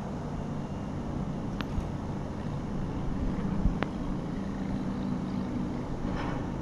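Steady hum of distant city road traffic, with two short sharp clicks about one and a half and four seconds in.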